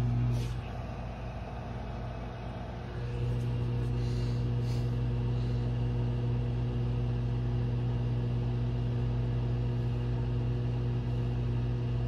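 Microwave oven running with a steady electrical hum while heating a full bowl of water. The hum drops away about half a second in and comes back about three seconds in.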